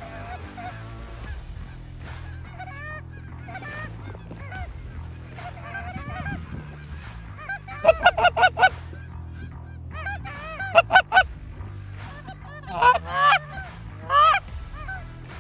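Geese honking. Faint scattered honks come first, then loud, rapid bursts of close honking about eight and eleven seconds in, and more in the last few seconds, over quiet background music.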